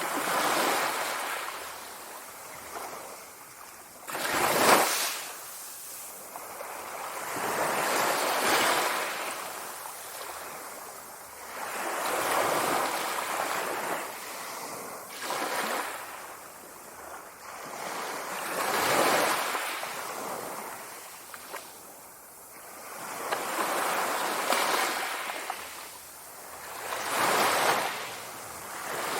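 Sea waves washing in, one after another every three to four seconds, each a swell of surf noise that rises and falls away. A sharper, louder crash comes about five seconds in.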